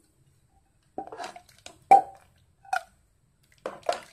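Metal ladle scooping thick stew out of an aluminium pot and knocking against its side, with about five short ringing clinks, the loudest about two seconds in.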